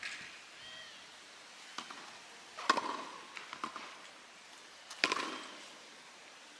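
Tennis ball struck by a racket twice, about two seconds apart, each hit a sharp pop with a short ring, with a few lighter taps in between.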